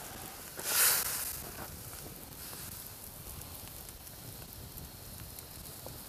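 Pelmeni in a pan of water over a wood campfire sizzling and hissing as a wooden spatula stirs them, with a louder burst of hiss about a second in. The fire crackles faintly underneath.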